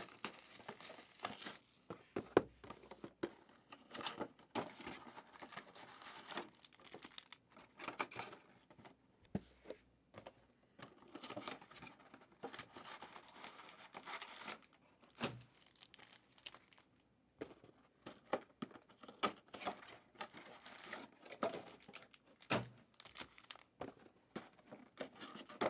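Trading-card pack wrappers being torn open and crinkled, with cards rustling and clicking as they are handled, in irregular bursts.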